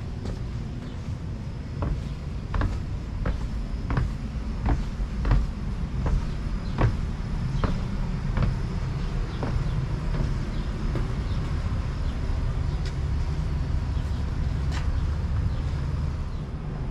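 Footsteps at an even walking pace, about one every 0.7 seconds, over a steady low rumble. The steps thin out to a few scattered knocks in the second half.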